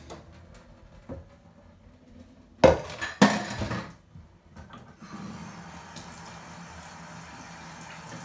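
A cooking pot clanking loudly in a kitchen sink as boiled pasta is drained, then a tap running steadily from about five seconds in to rinse the pasta.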